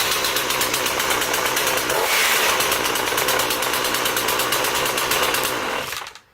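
Sovereign petrol two-stroke chainsaw engine running steadily, then cutting out near the end and dying away within about half a second.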